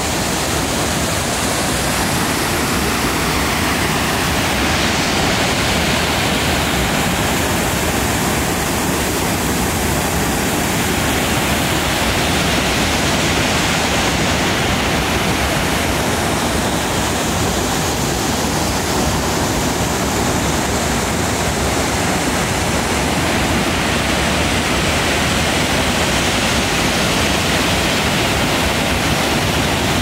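Svöðufoss waterfall and its cascades: a loud, steady rush of falling water, heard from near the brink, its tone swelling and fading slowly every several seconds.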